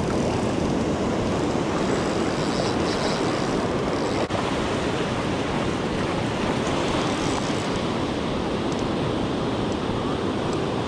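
Ocean surf washing up a sandy beach: a steady, even rush of breaking waves, with wind buffeting the microphone.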